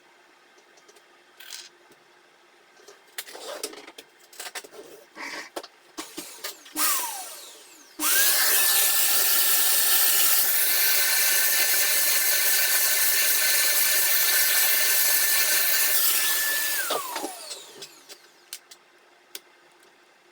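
Small power tool's electric motor spinning up to a steady high whine, running about eight seconds and then winding down, after a few seconds of light clicks and knocks of handling.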